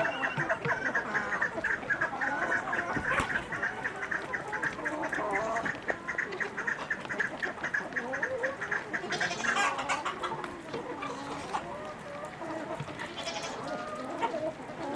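Poultry calling and clucking, with a fast, even run of repeated calls through the first nine seconds, other birds calling over it, and a brief rustle about nine and a half seconds in.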